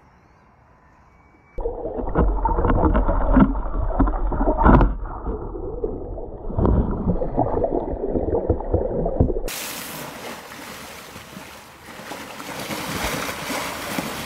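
Water churned by a swimming elephant, heard muffled through a submerged camera: gurgling and bubbling with knocks, starting suddenly about a second and a half in. About two-thirds of the way through it cuts to a steady hiss of rushing water at the surface.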